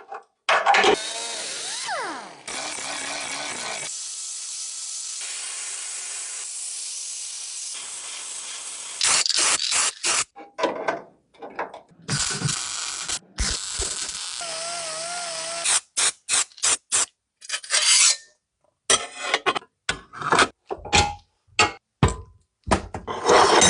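Workshop tool sounds in quick cuts: a steady hissing tool run for several seconds, then a string of short, abrupt bursts, clicks and scrapes.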